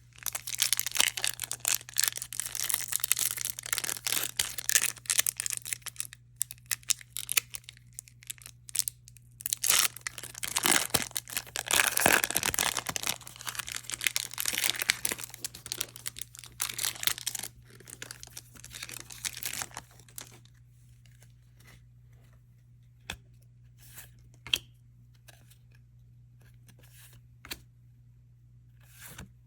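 Foil booster pack wrapper being torn open and crinkled, a dense crackle of tearing and rustling for about twenty seconds. After that, only a few scattered light clicks and taps.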